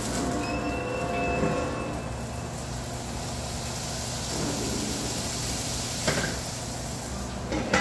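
Cooking at a stovetop: a steady low hum with a pan and utensil being worked, and two sharp clinks of a utensil against cookware, one about six seconds in and one near the end.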